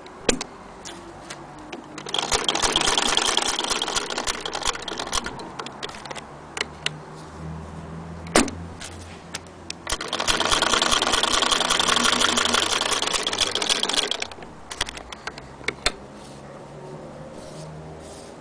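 A 1902 Singer 48K hand-crank sewing machine running as it stitches through felt, in two runs of rapid, even rattle, one about two seconds in and one about ten seconds in, each lasting three to four seconds. Single clicks and knocks come between the runs.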